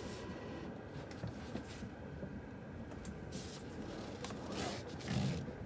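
Quiet interior of a Tesla Model 3 electric car: a faint steady hum with a few soft rustles and clicks as hands work the steering wheel.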